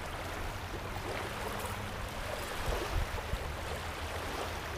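Wind buffeting the microphone as a steady low rumble, with small waves lapping at the shoreline.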